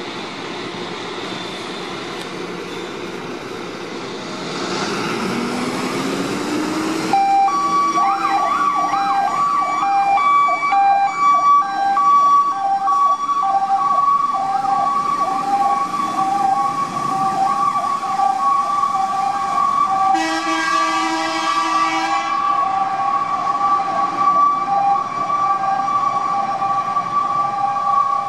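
Fire engines pulling out on an alarm: a diesel engine revs up, then two-tone hi-lo sirens start about seven seconds in and keep alternating to the end. A blast of air horns sounds about twenty seconds in.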